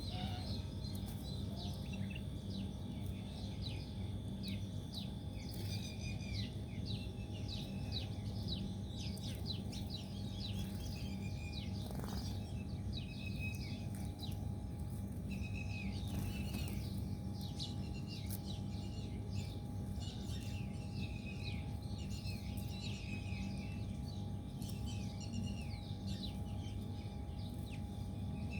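Small birds chirping and trilling, many short calls throughout, over a steady low hum.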